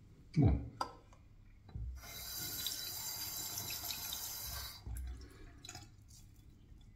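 Bathroom tap water running into a sink for about three seconds, starting about two seconds in and cutting off sharply. A short low thump sounds near the start.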